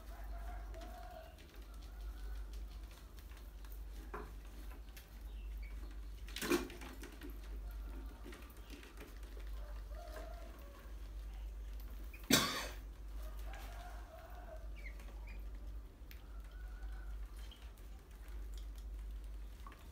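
Rats scurrying and pattering about on a tiled floor around glass jars, with faint short calls now and then. Two sharp knocks stand out, about six seconds apart, the second the louder.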